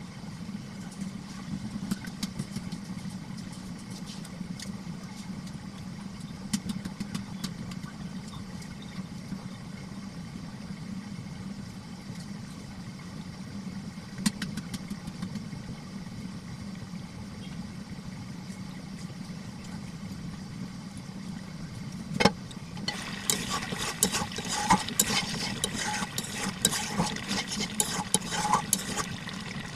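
A steady low motor hum with scattered light clicks and taps. About 22 seconds in comes a sharp knock, then dense crackling and clatter on top of the hum.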